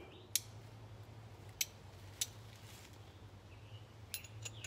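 Sharp clicks from a hand-held fire starter being struck to light a tinder bundle: three single strikes in the first two and a half seconds, then a quick run of ticks near the end, over a low steady hum.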